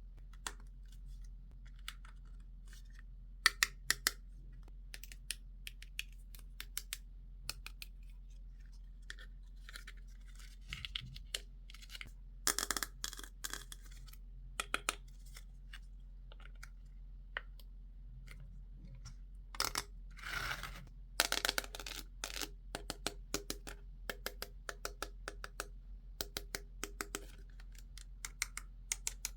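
Hands unboxing a Barbie toy set: scattered clicks and taps of plastic pieces and packaging, with two longer stretches of tearing and rustling, about twelve seconds in and again about twenty seconds in.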